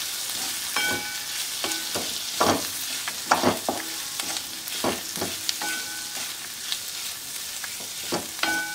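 Spatula scraping and knocking against a metal kadhai as onions, mushrooms and spices are stirred, over a steady frying sizzle. Some strikes leave the pan ringing briefly, and a cluster of louder scrapes comes about three to four seconds in.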